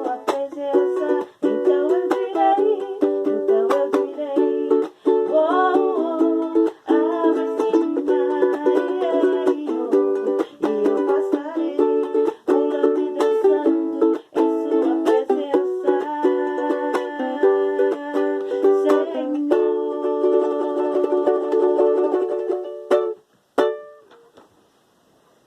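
Ukulele strummed in a steady rhythm, playing the chords of a worship song. It stops about 23 seconds in, with one last strum just after.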